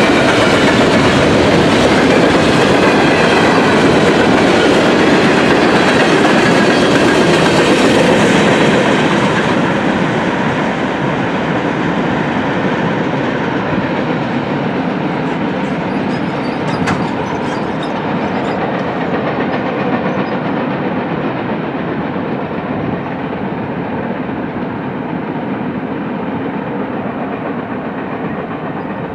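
Long freight train of open-top hopper cars rolling past on the rails: steady wheel-on-rail noise that grows quieter and duller from about ten seconds in as the rear of the train moves away.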